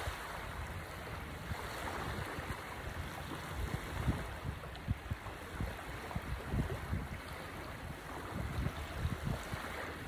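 Small waves lapping and washing on a sandy shore, with wind rumbling in uneven gusts on the microphone.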